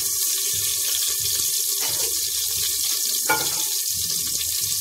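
Mustard seeds heating in hot oil in a pressure cooker: a steady sizzling hiss with two sharp pops, about two seconds and three seconds in, as the seeds begin to splutter.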